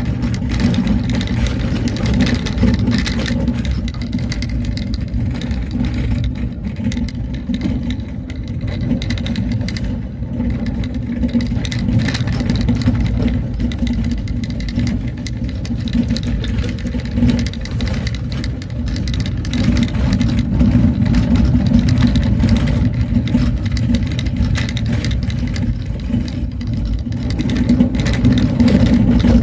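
Motor vehicle's engine running steadily as it drives along a road, with many small knocks and rattles over the steady low rumble.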